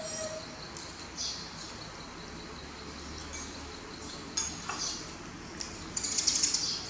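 Metal spoons clinking and scraping against porridge bowls during eating: a few light, separate clinks, then a quick cluster of them near the end.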